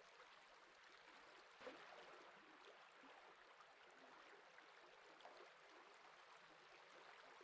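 Near silence: a faint, even hiss with one soft tick about a second and a half in.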